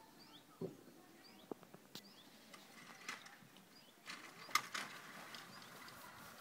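Small birds chirping faintly now and then, with a few scattered knocks and clicks, the loudest about four and a half seconds in.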